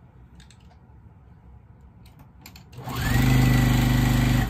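Juki sewing machine stitching a seam: about three seconds in the motor winds up with a rising whine, then runs fast and steady for about a second and a half and stops.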